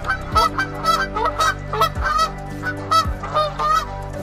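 Canada geese honking: a quick series of short, repeated honks, about three a second, that stops shortly before the end.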